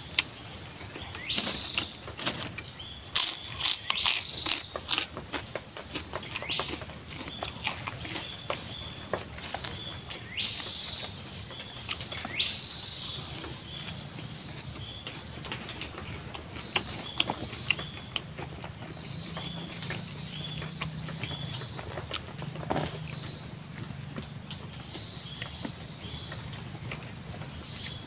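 Eating by hand: chewing and fingers working rice and greens, with a run of sharp clicks a few seconds in. Behind it, a small bird chirps in short bursts every few seconds over a steady high insect drone.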